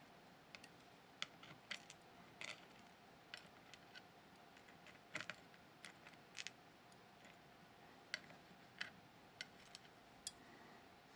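Scattered small, sharp clicks and taps, about a dozen at irregular intervals, from the pins and parts of a disassembled Kaba Star dimple lock being handled.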